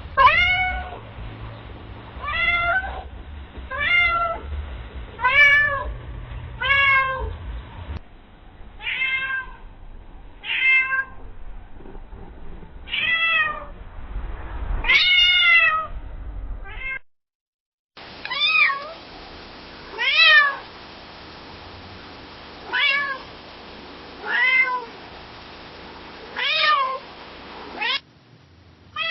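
Domestic cat meowing again and again, a single meow every second or two, each one rising and then falling in pitch. The meows come from several separate recordings, with a short silent break a little past the middle.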